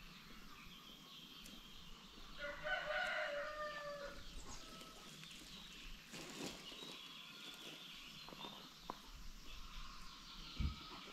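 A rooster crows once, about two seconds in, a call lasting about a second and a half, over faint clucking from the flock. A short low thump comes near the end.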